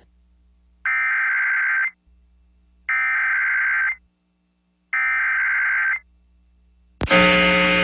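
Emergency Alert System SAME header: three one-second bursts of buzzy digital data tones, a second apart, signalling the start of an emergency alert. About seven seconds in, the loud, steady, multi-tone EAS attention signal begins.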